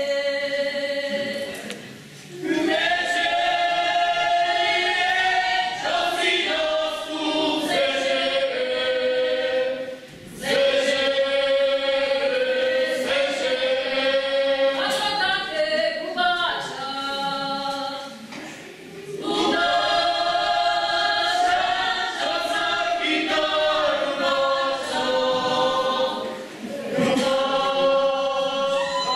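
A group of voices singing a folk song together in chorus, in long phrases of about eight seconds with short breaks between them.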